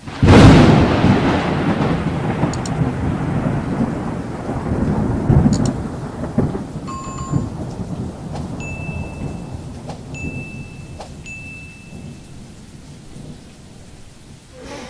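Thunderstorm sound effect: a sudden loud thunderclap, then a rolling rumble with rain that slowly fades. A few short high electronic tones sound midway through.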